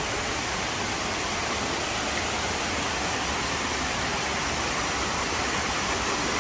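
Steady rushing of falling water from a waterfall, an even hiss with no breaks.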